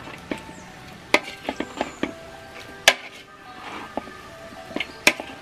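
Long metal spatula knocking and scraping against a large steel wok while stirring chicken adobo with hard-boiled eggs: irregular clanks, about a dozen, some ringing briefly, the sharpest about a second, three seconds and five seconds in.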